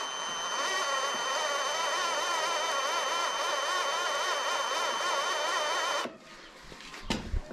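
Electric drill running with a 6.8 mm bit, drilling out a stripped thread in a Honda CRF450's cylinder head to take an M8 Helicoil insert. Its whine wavers in pitch as the bit bites, then it stops about six seconds in, followed by a short knock.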